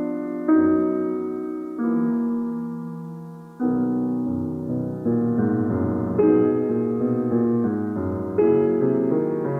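Slow, tender piano music: full chords struck about once a second and left to ring and fade. One chord is allowed to die away further before the next comes in, about three and a half seconds in.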